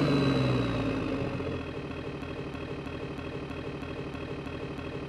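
Tank engine sound effect dying down from a rev into a steady, rhythmic idle, then cutting off suddenly at the end.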